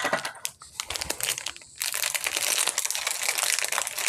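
Paper and clear plastic packaging crinkling as hands unwrap and unfold it: scattered crackles at first, becoming dense and continuous from about two seconds in.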